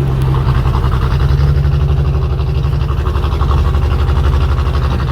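An engine idling steadily, with a fast, even low throb.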